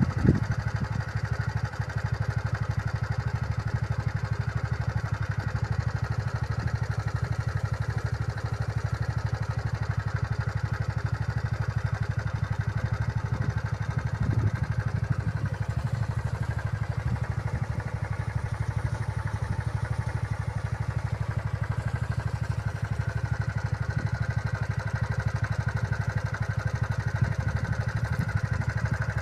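A vehicle engine running steadily, with a low rumble and fast, even firing pulses throughout.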